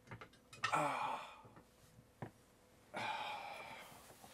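A man's short wordless vocal sound falling in pitch, a few small clicks, then a long breathy exhale like a sigh that fades out.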